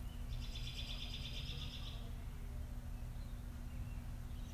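A bird's high, rapidly pulsing trill, starting about half a second in and lasting about a second and a half, over a steady low hum.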